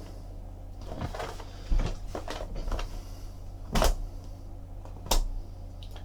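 Hands unsealing and opening a factory-sealed cardboard trading card box: about five sharp knocks and crinkles of wrap and cardboard, the loudest near the middle and late in the stretch.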